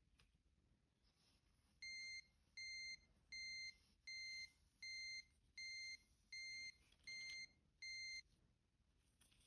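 Electronic beeper sounding nine short, identical high-pitched beeps at an even pace, a little over one a second, starting about two seconds in.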